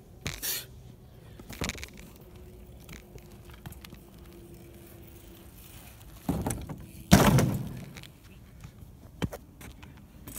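BMX bike going over a plywood ramp and landing on concrete: two heavy thuds about a second apart past the middle, the second the loudest, with lighter knocks from the bike before them.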